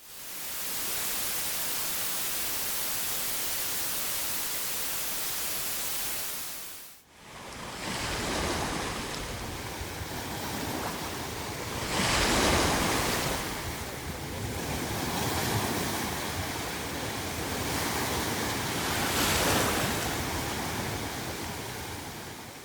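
A steady, even hiss of synthetic masking noise that fades out after about seven seconds. Then ocean waves fade in: surf washing continuously, with several louder surges as waves break.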